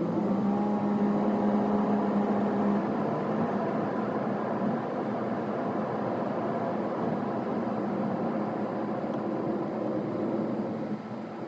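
Car on the move, heard from inside: engine and road noise. A steady hum with overtones for the first three seconds or so, then an even rushing noise.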